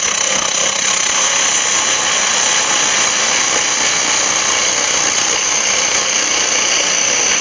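Gouge cutting across the face of a spalted beech bowl blank spinning on a wood lathe: a loud, steady cutting noise as the underside is turned down below a raised rim so the bowl will sit flat.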